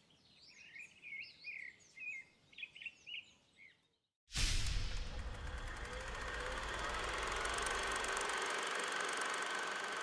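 Small birds chirping and twittering in short, quick calls for the first four seconds. Then a sudden, louder rumbling, hissing noise starts and holds steady to the end: a logo-reveal sound effect.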